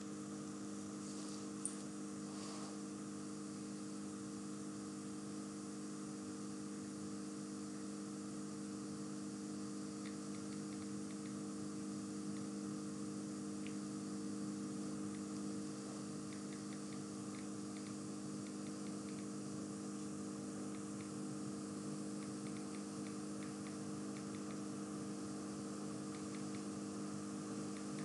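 Steady low electrical hum over faint hiss, with a few faint ticks around the middle.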